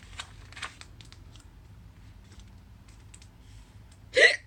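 Soft clicks and rustles of a picture book's pages being handled and turned. A single short, loud sound comes near the end.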